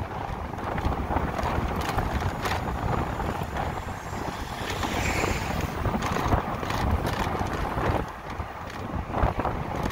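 Wind rushing and buffeting over the microphone of a moving electric motorcycle, with road rumble underneath; it eases briefly about eight seconds in.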